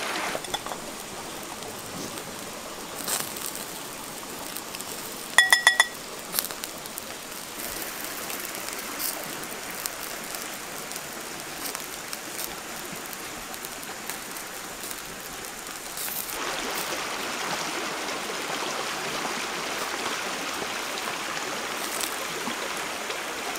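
Steady rushing of a river stream, with a quick run of sharp clicks about five seconds in; the rushing grows louder about sixteen seconds in.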